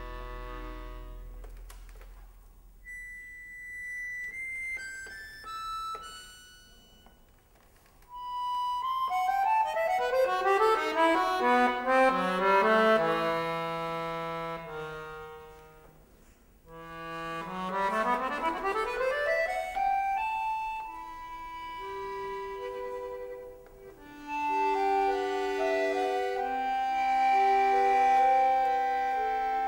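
Solo piano accordion playing a contemporary concert piece. It starts with soft, sparse high notes, breaks into loud, fast falling runs about eight seconds in, sweeps up in a quick rising run about halfway through, then settles into sustained chords over a moving bass line.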